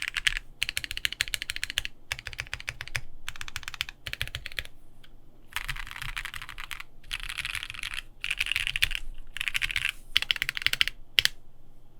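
Fast typing on a Bakeneko60 mechanical keyboard with lubed Gateron Ink Black V2 linear switches, an FR4 plate and GMK keycaps: rapid runs of keystroke clacks broken by short pauses. The typing stops about a second before the end.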